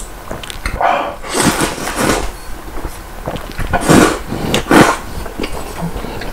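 A man slurping thick spicy instant ramen noodles (Neoguri) off chopsticks, several loud slurps in a row, the loudest around four to five seconds in.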